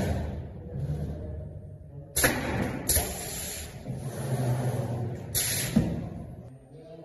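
Automatic canvas stretching machine working: a steady low machine hum with three sharp hisses of released compressed air, about two seconds in, a second later and again near five seconds, along with short knocks as its pneumatic clamps and carriage move.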